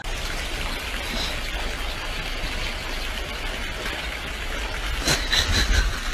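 Steady rushing noise with a low rumble, and a few short clicks about five seconds in.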